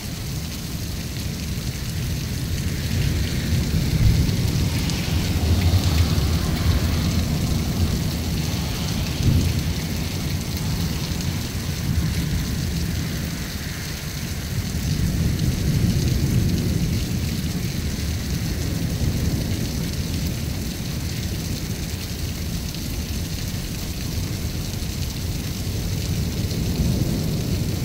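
Heavy rain pouring down in a steady hiss over low rolling thunder. The thunder swells about four seconds in and again a little past halfway.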